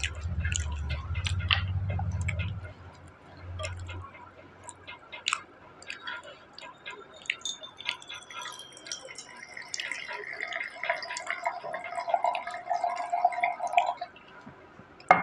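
Whisky poured from a glass bottle into a glass tumbler, trickling and splashing as the glass fills, after a few seconds of low rumbling handling noise. Small clicks of glass run through it, with a sharp knock near the end.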